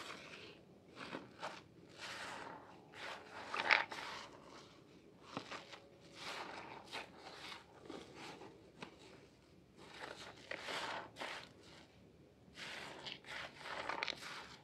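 Wet hands rubbing and squeezing a bar of soap in thick lather: irregular squelches and crackling foam, with a louder squish a few seconds in and another near the end.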